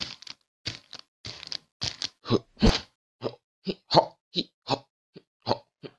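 A string of short cartoon sound effects, about two or three a second, each brief and separate.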